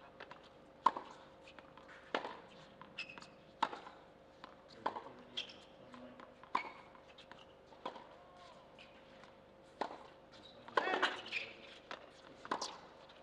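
Tennis ball on a hard court: bounces before the serve, then the serve and a rally of racket strikes, each a sharp pop about every second to second and a half, with a busier cluster of sounds near the end of the point.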